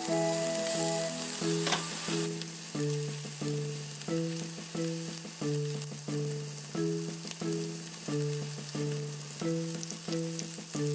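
Chicken thigh pieces and rice-cracker-coated shrimp sizzling in hot oil in frying pans, under background music with a steady repeating run of notes.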